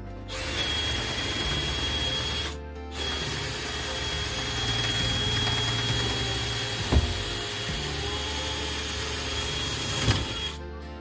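Electric power tool running steadily with a high motor whine, cutting out for about half a second a couple of seconds in, then running on until just before the end, with two sharp clicks late on.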